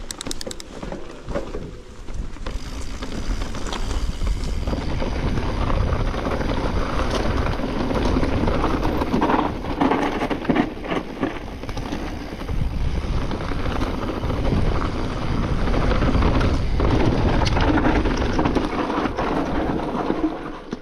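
Wind rumbling on the microphone, rising and falling in gusts.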